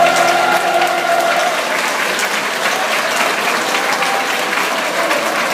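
Large audience applauding, with many hands clapping, as a choir's last held note fades out in the first second and a half.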